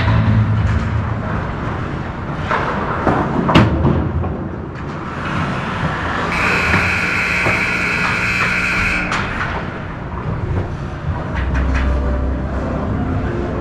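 Hockey rink ambience: a steady low rumble with a few sharp knocks, the loudest about three and a half seconds in, and a held tone lasting about three seconds in the middle.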